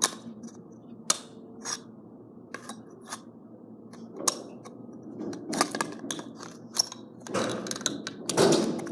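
Scattered sharp clicks and snips of scissors working at the small plastic fan and insides of a broken mini hairdryer, with two longer scraping sounds near the end.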